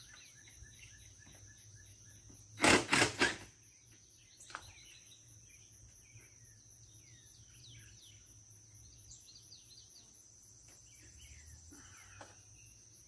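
Birds chirping over a steady high insect drone, broken about three seconds in by one loud burst of noise lasting under a second, with a smaller click a second later.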